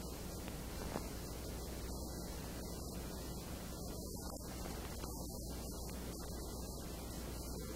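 Steady low electrical hum and hiss, with a single faint tick about a second in.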